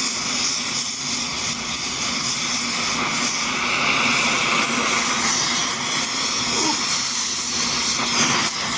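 Blow torch flame burning with a steady hiss, heating a piece of steel for forging.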